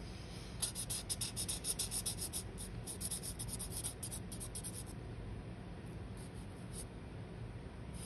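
Felt-tip art marker scratching on paper in rapid short back-and-forth strokes for about four seconds, then a few separate strokes near the end.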